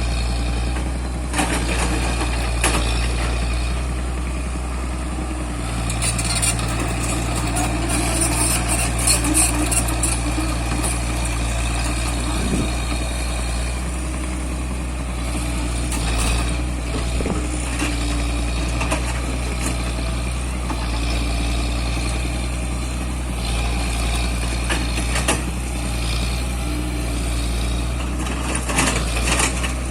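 Heavy construction-machine engine running steadily, with scattered metallic knocks and clanks over it.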